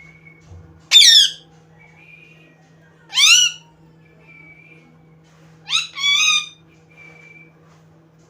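Pet parrot giving three loud, harsh calls, about a second in, about three seconds in and a double call near six seconds, with faint short whistles in between.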